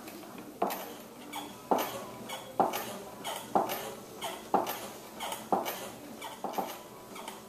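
Pottery wheel knocking at a steady pace, about once a second, while a small earthenware jug is thrown on it.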